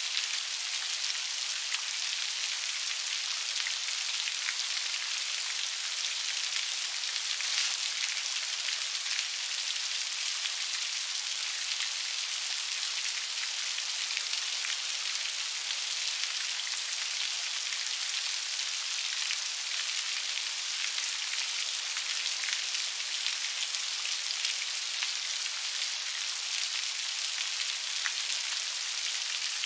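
Steady rain falling, a dense even hiss of many fine raindrops pattering on a surface.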